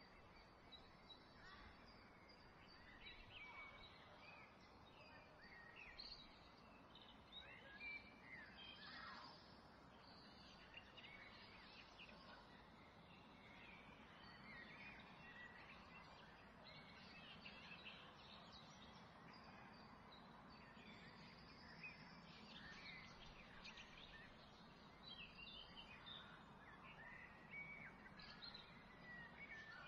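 Near silence: faint background hiss with scattered faint bird chirps.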